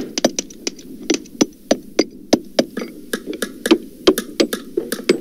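Recorded hammering, pitched down: irregular hammer blows, about three or four a second, each a dull low knock, some with a faint high ring after them.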